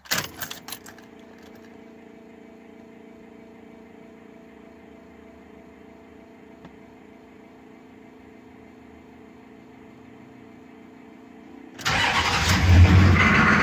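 A few clicks, then a faint steady hum for about eleven seconds; near the end a new starter cranks the 1994 Chevy K2500's 6.5 turbo diesel V8 and the engine fires and runs. The starter turns it over very fast.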